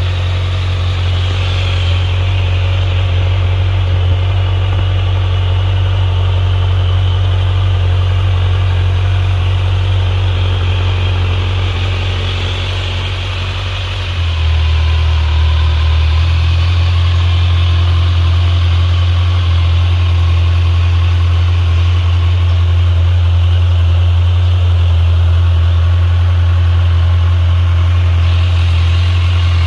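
2023 Kawasaki Z900's inline-four engine idling steadily through its stock exhaust, with no revving. About halfway through the sound dips briefly, then comes back a little louder and fuller.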